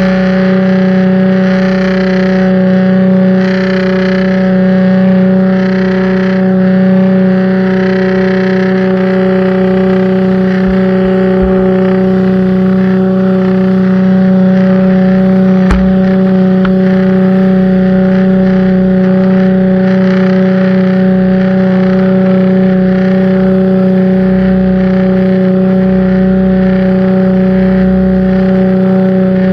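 Pressure washer running steadily: a constant pitched drone with a hiss of spray over it. A single sharp click sounds about sixteen seconds in.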